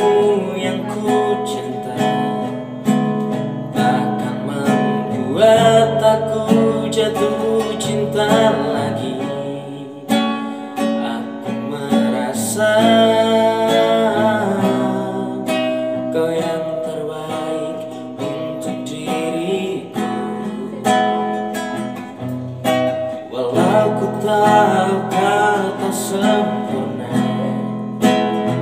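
Acoustic guitar music, strummed.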